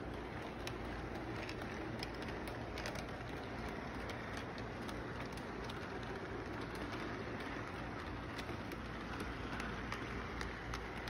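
Electric model train running on its track: a steady rumble of the motor and rolling wheels with many small irregular clicks from the wheels on the rails.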